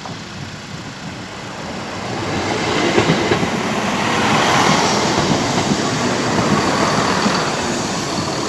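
Diesel multiple unit train passing over a level crossing. It grows louder over the first three or four seconds, then holds loud with a busy run of clicks and knocks from the wheels.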